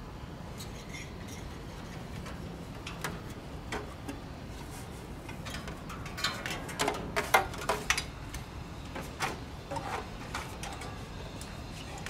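Knocks and light clatter as an air-conditioner outdoor unit's removed fan blade and motor are handled and carried down a stepladder, the knocks bunched together from about halfway through. A steady low hum runs underneath.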